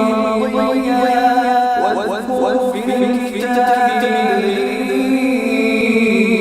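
A man reciting the Quran in a slow melodic chant, holding long notes that waver and glide in pitch.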